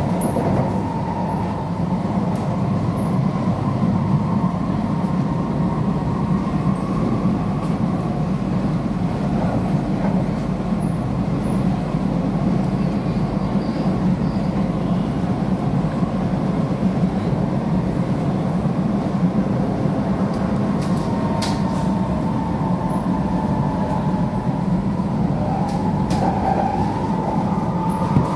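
Cabin noise of a Kawasaki–CRRC Sifang C151C metro train running at speed on its track: a steady low rumble of wheels on rail with a thin whine over it, stronger at the start and again near the end. A few sharp clicks come through about three-quarters of the way in.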